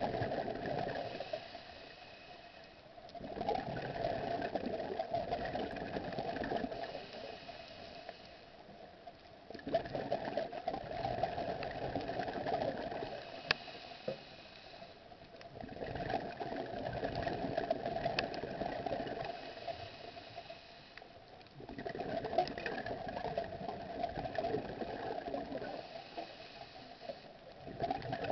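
A diver's breathing recorded underwater: long bubbling, crackling surges with short quieter gaps between them, repeating about every six seconds.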